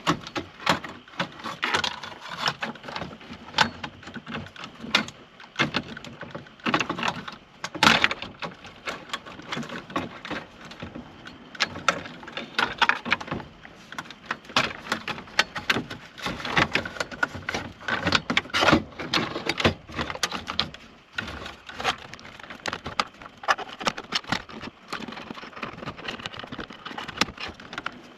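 Irregular clicks, knocks and rattles of plastic and metal parts being handled: hands working a car radio and its dash bracket and wiring plugs loose.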